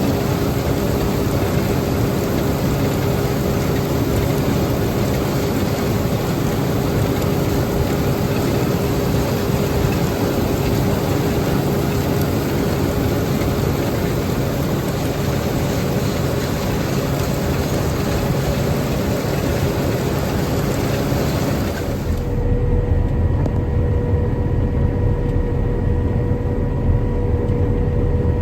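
Heavy farm machinery engine running steadily during wheat harvest. About 22 seconds in, the sound changes abruptly to a deeper engine drone with a steady whine.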